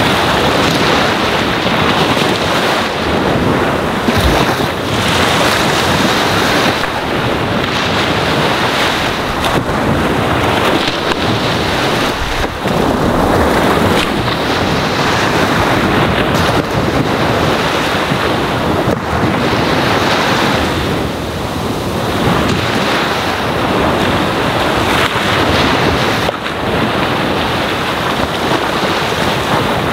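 Ocean waves washing onto a sandy shore: a steady rushing surf that swells and eases every few seconds.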